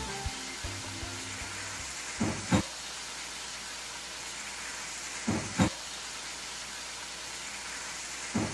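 Chicken livers and gizzards sizzling in an aluminium wok as they are stirred with a metal ladle. A pair of sharp knocks comes about every three seconds, three times.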